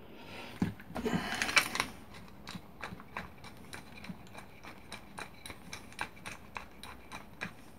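Small metal and plastic parts of a Katsu trim router clicking and rattling as it is reassembled by hand with a screwdriver: a short rattle about a second in, then a string of light, irregular ticks.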